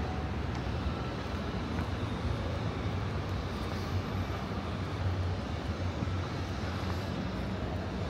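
Steady low rumble of city background noise, with no distinct events.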